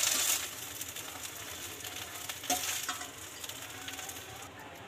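Okra sizzling in mustard oil in a steel kadai, the sizzle fading as the pieces are lifted out and dropping away near the end, with a couple of light knocks partway through.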